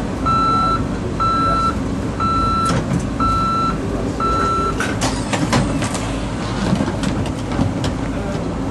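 Electronic warning beeper sounding five steady beeps, one pitch, about one a second, over a vehicle's running rumble, followed by a few seconds of sharp clicks and clatter.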